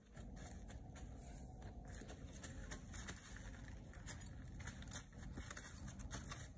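A saddled burro stepping across a ground tarp, the tarp rustling and crackling under her hooves, with many small clicks from her tack and lead rope.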